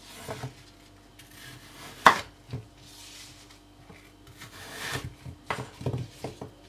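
Chef's knife cutting peeled apple halves into wedges on a bamboo cutting board: sharp knocks of the blade meeting the board, the loudest about two seconds in and a quick run of them near the end.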